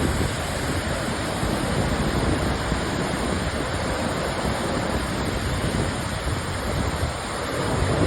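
The Great Falls of the Passaic River, a 77-foot waterfall, giving a steady rush of falling water, with wind buffeting the microphone.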